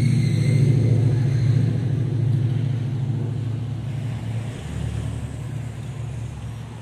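A motor engine running with a steady low drone, loudest in the first second or two and slowly fading.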